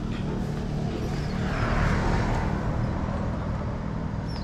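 Road traffic: a steady low rumble, with a vehicle passing that swells and fades about two seconds in.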